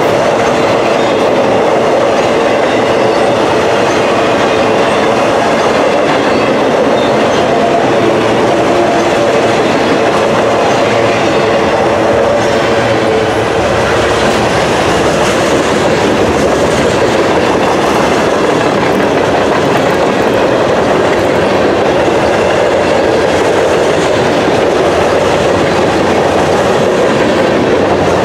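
Mixed freight cars (autoracks, then lumber-loaded flatcars and boxcars) rolling past close by: steel wheels running on the rail in a loud, steady clatter, with a faint steady ringing note underneath.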